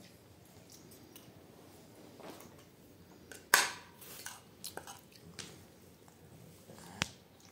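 Spoons clicking and scraping on metal plates as people eat rice, with quiet chewing; a sharp clink about halfway through and another near the end.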